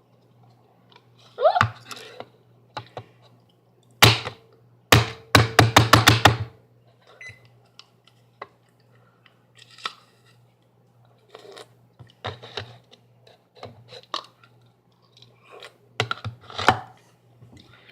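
Hard ice being bitten and crunched, heard as scattered sharp cracks and knocks. A loud crack comes about four seconds in, followed by a quick run of about seven crunches, with sparser clicks later.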